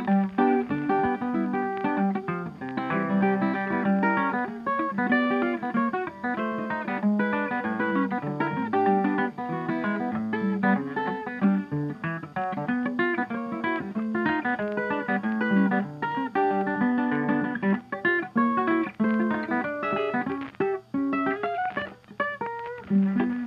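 Background music: plucked guitar playing a busy run of quick notes.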